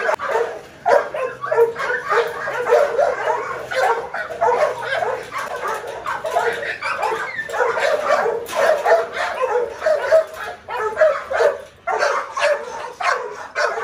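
Kennelled dogs yipping, whining and barking in a near-continuous stream of short cries.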